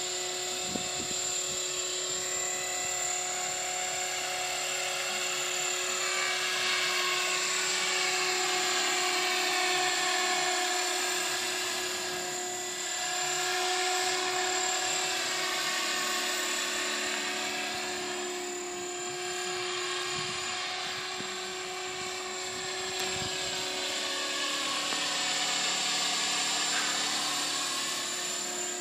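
Mikado Logo 400 electric RC helicopter in flight: a steady high-pitched whine from its motor and rotors that swells and fades gently as it moves across the sky, with slow sweeping, phasing changes in tone.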